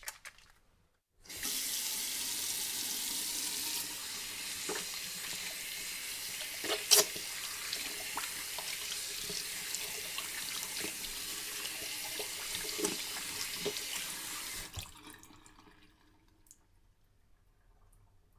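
Hands being washed under a running tap at a sink: the water starts suddenly about a second in and runs steadily, with a few sharp knocks and splashes, the loudest about halfway through. Near the end the water is turned off and dies away.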